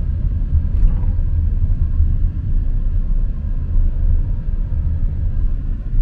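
Steady low rumble of a moving car heard from inside the cabin: road and wind noise.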